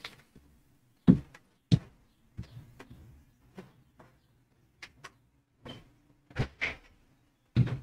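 Scattered knocks and thumps of someone moving about a room and shutting a door, with the two sharpest knocks about a second in and a cluster near the end. Faint bird chirps come through from outside.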